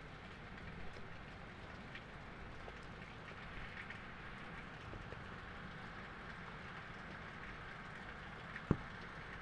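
Steady rain falling, an even hiss with scattered individual drops ticking. One sharp, louder tap stands out near the end.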